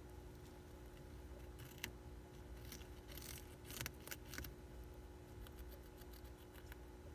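A hamster nibbling a crisp lettuce leaf: faint, quick crunches and crackles, thickest from about two to four and a half seconds in, then sparser.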